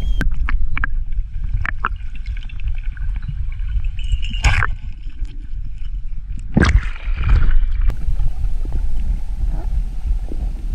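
Underwater sound of a diver's camera: a steady low rumble of water moving against the housing, broken by scattered clicks and short bubbling bursts, the loudest at about four and a half and about seven seconds in. The background changes abruptly about eight seconds in.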